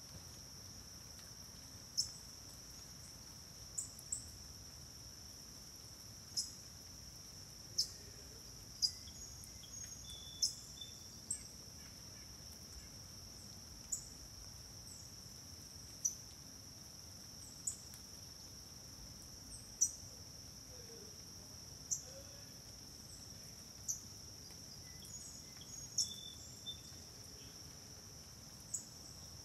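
Steady, high-pitched drone of insects, faint, broken by short sharp ticks every one to two seconds.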